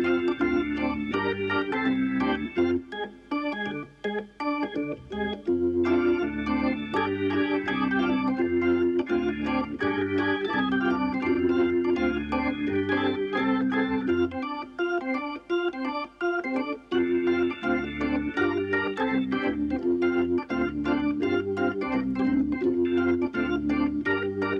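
Organ music: a light tune of quick changing notes over a stepping bass line. The bass drops out twice, for a couple of seconds each.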